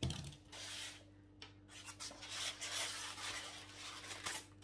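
Packaging rubbing and rustling as a ceramic candle holder is unwrapped and handled. The rustling becomes busier and denser about halfway through.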